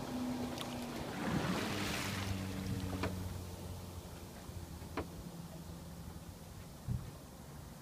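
Yamaha F115 four-stroke outboard running at speed on a boat pulling away, its steady drone fading. Water rushes past about a second in, and a few sharp knocks follow.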